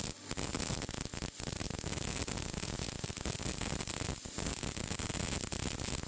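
MIG welding arc crackling and sizzling steadily, a dense static-like hiss, with a few brief breaks where the arc drops out.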